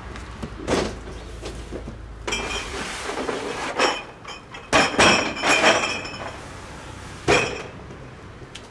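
Hard objects clinking and clattering, a few separate knocks and then a burst of rattling with a ringing tone, loudest about five seconds in, with one more knock near the end.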